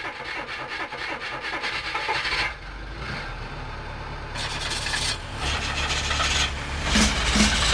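A truck engine running with a rough, rasping noise, a low rumble building about five seconds in. Music comes in near the end.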